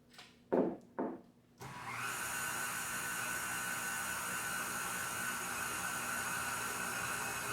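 Electric stand mixer starting up about a second and a half in, then running steadily with a whining motor while it mixes a thick cookie dough. A couple of knocks come just before it starts.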